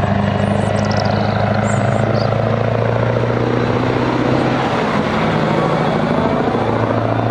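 Diesel engine of a road-train truck hauling bulk tanker trailers, running steadily as it drives past, with a constant low drone and road noise.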